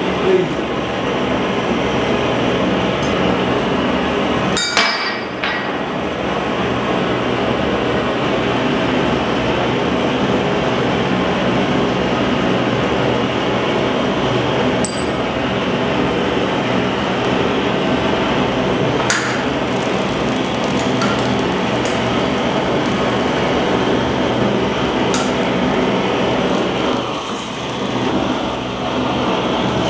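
Handheld gas blowtorch burning with a steady hiss while its flame heats a cracked glass jar, which gives a few sharp cracks and clinks as the glass breaks under the heat, the loudest about five seconds in.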